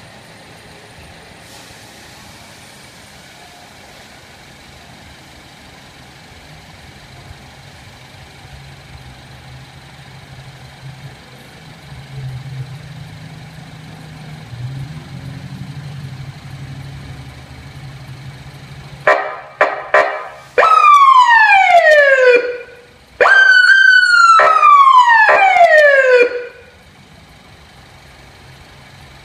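Electronic police siren fitted to a car gives three short blips, then two long tones that each sweep down from high to low pitch. These are the loudest sound here. Before and after, the car's engine idles steadily with a low hum.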